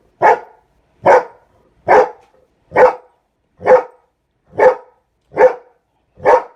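Dog barking in play at a butterfly cat toy: eight sharp barks in an even rhythm, a little under one a second.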